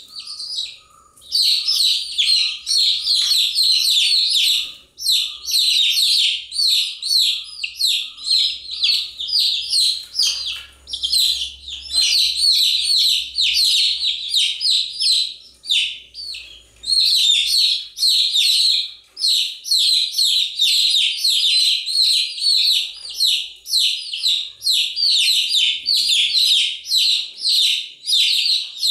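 A brood of baby chicks peeping continuously, many short high-pitched chirps overlapping, with a few brief lulls.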